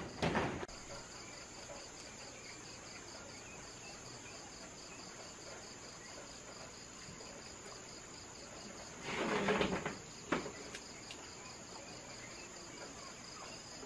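Insects, crickets by their sound, chirring steadily in a high, pulsing trill. About nine seconds in comes a brief louder rustle, followed by a couple of light knocks.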